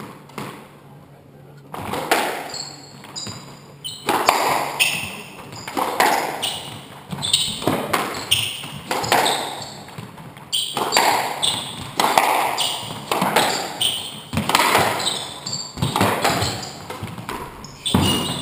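Squash rally: the ball hit back and forth by rackets and off the court walls, with sneakers squeaking on the wooden floor, echoing in the enclosed court. The hitting begins about two seconds in, after a quiet start while the serve is readied.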